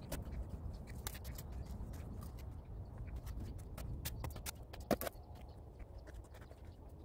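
Work boots stepping and shifting on loose soil and cement-block steps: irregular scuffs and knocks, the loudest a sharp knock about five seconds in, over a steady low rumble.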